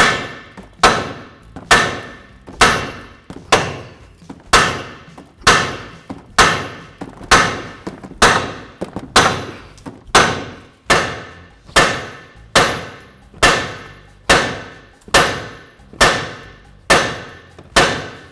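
Steady, repeated hammer blows on a steel lower control arm, about twenty strikes a little faster than one a second, each with a short metallic ring. They are knocking on the arm to drive the lower ball joint stud out of it, and the corroded stud does not break free.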